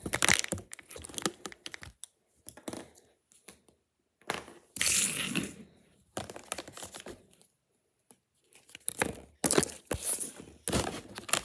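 Packaging being handled: crinkling and tearing in irregular bursts, with the longest and loudest tear about four to five seconds in.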